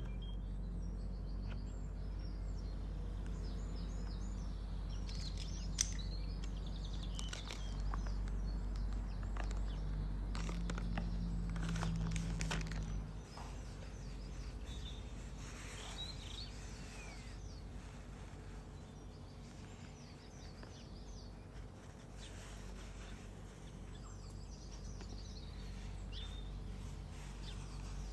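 Small birds chirping and calling over a steady low hum, with a few sharp clicks in the first half; the hum drops away about halfway through.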